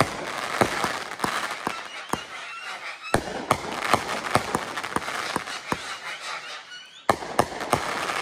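World Class "Pyro Circus" 500-gram firework cake firing: irregular sharp launch and burst reports over a continuous crackle of glittering stars. There is a short lull about seven seconds in, then another loud report.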